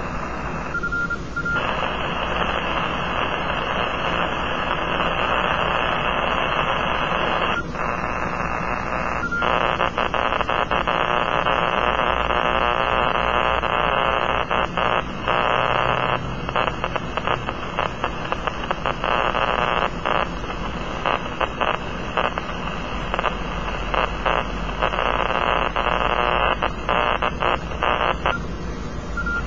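Powerline noise received by a Kenwood TS-480 transceiver on the 6-meter band, heard as steady static from the radio, the sign of electrical interference from nearby power lines. Short beeps from the radio's keys come about a second in and again about nine seconds in, as the mode and frequency are changed. From about sixteen seconds in the static breaks up with many brief dropouts.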